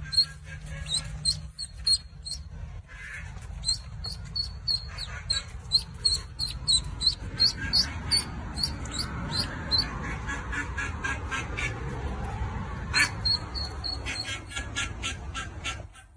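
Ducklings peeping: a quick run of short, high cheeps, several a second, with a pause in the cheeping about two-thirds of the way in.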